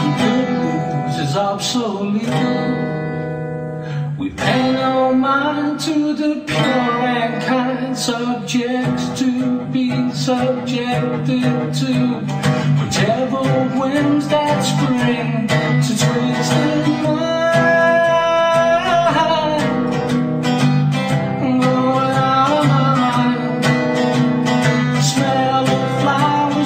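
Acoustic guitar strummed steadily in chords, a solo instrumental passage.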